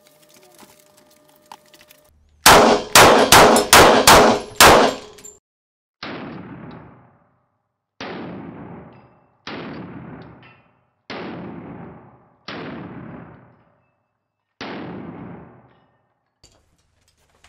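Handgun shots: a quick string of about six very loud shots, then six more single reports a second or two apart, quieter and each trailing off, fired into body armor on a mannequin.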